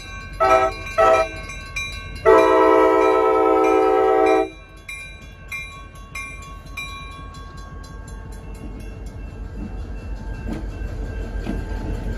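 A diesel locomotive's multi-chime air horn sounds two short blasts and then one long blast of about two seconds. After the horn, the locomotive's engine rumbles low as it rolls past, growing louder toward the end, while a crossing bell rings faintly.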